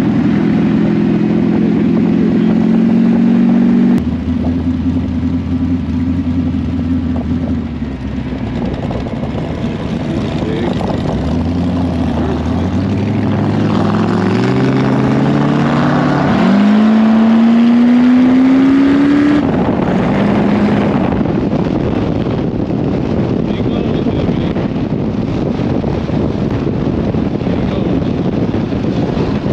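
Boss Hoss motorcycle's Chevrolet V8 heard from the saddle on the move. It holds a steady pitch, drops a few seconds in, then climbs as the bike accelerates, dips and climbs again, and eases off about two-thirds of the way through. After that, wind rush on the microphone takes over.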